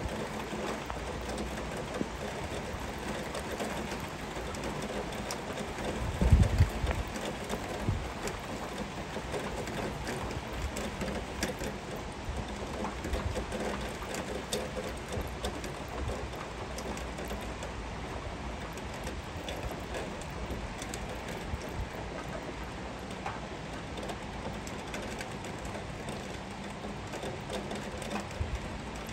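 Heavy rain falling steadily, an even hiss with scattered drop ticks, and a brief low rumble about six seconds in.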